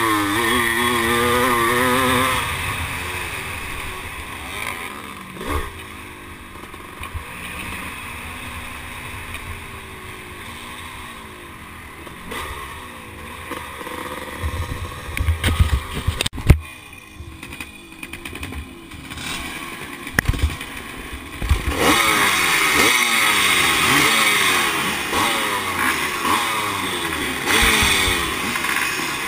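1978 Husqvarna CR390's two-stroke single-cylinder engine being ridden hard, its pitch rising and falling over and over with throttle and gear changes. It is loud for the first two seconds and quieter through the middle, with one sharp knock about sixteen seconds in, then revs up repeatedly and loudly again over the last seven seconds.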